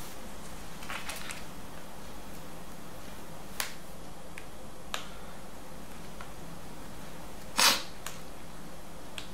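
A few sharp plastic clicks and snaps, the loudest near the end, as the Sony VAIO Duo 13's plastic speaker grille is pried up against its stiff adhesive with a plastic pry tool.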